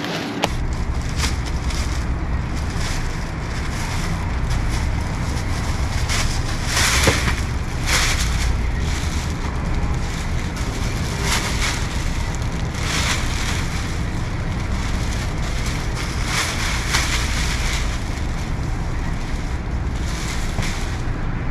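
Wind buffeting the microphone, a steady low rumble, with scattered short rustles and crackles over it.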